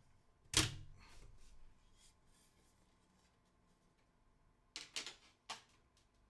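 Computer case side panel lifted off with a single sharp clunk, followed by faint handling rustle. About five seconds in come three quick sharp clicks or taps.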